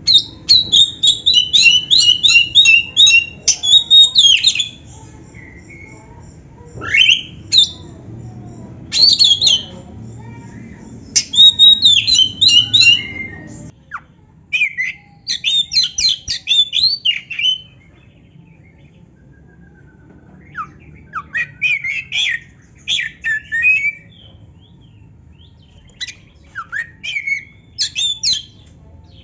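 Oriental magpie-robin (kacer) singing: loud bursts of rapid, varied whistled and harsh notes, broken by short pauses. About halfway through a second kacer takes over with quieter phrases.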